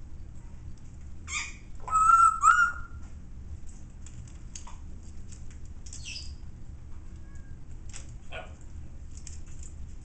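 Young African grey parrot giving two short whistle-like calls about two seconds in, the second bending upward in pitch. Faint scattered clicks and a few brief chirps follow as it climbs.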